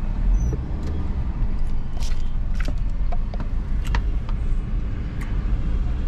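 Steady low rumble of a car's engine and road noise heard from inside the cabin while driving, with a few sharp clicks about two and four seconds in.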